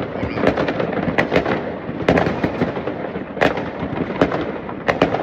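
Many New Year's fireworks and firecrackers going off at once: a dense, continuous crackle of bangs, with louder single cracks about a second, two seconds, three and a half seconds and five seconds in.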